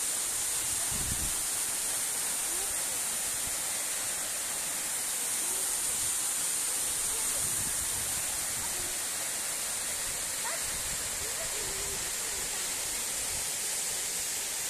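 Waterfall rushing in a steady, unbroken hiss of falling water.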